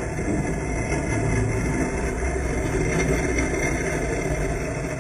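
Small garden-railway train rolling along the track right by the microphone: a steady rumble of wheels on the rails that swells over the first second and holds.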